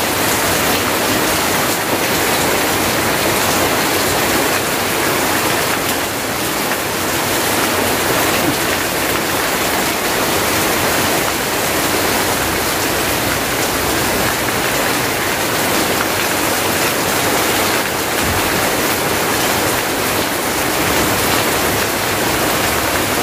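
Heavy rain falling steadily on trees and ground, with a stream of runoff pouring off a roof edge close by.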